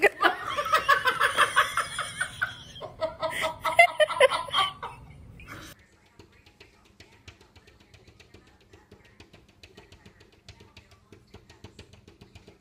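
A person laughing hard in quick repeated pulses for about six seconds, then it stops abruptly and faint background music with a light steady beat carries on.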